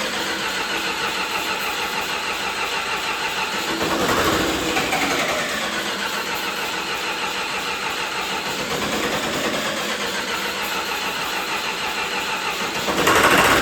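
John Deere 450C bulldozer's diesel engine being cranked by the starter without catching, in an even pulsing rhythm that surges briefly about four seconds in and again near the end before the cranking stops. The hard start is from air in the fuel lines after the machine sat.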